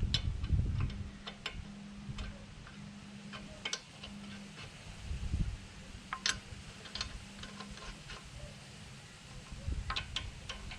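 Irregular light metallic clicks and knocks of hand tools and parts being handled during wheel and hub work on a car, with the sharpest knock about six seconds in and a cluster of clicks near the end, over a low hum.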